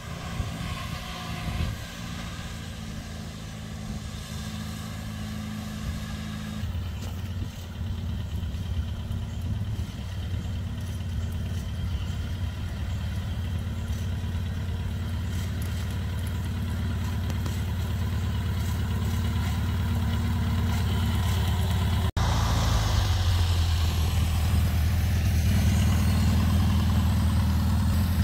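Farmall Cub tractor's four-cylinder flathead engine running steadily as it pulls cultivator plows down the corn rows, getting louder as the tractor comes close. The engine's sound shifts abruptly about a quarter of the way in and again near the end.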